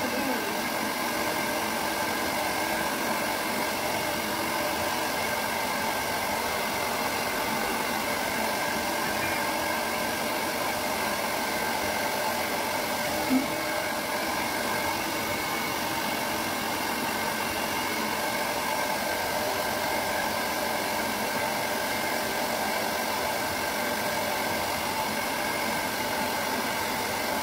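Handheld hair dryer running steadily, a constant rush of air with a steady motor whine, as it dries a wet cat's fur. One brief short sound stands out about halfway through.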